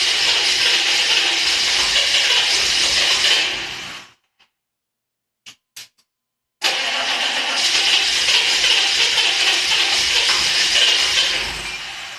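6.5-litre turbo diesel V8 being cranked by its starter, twice, without firing: a steady cranking whir that winds down and stops, a few faint clicks in the pause, then a second cranking attempt that winds down near the end. The engine won't start.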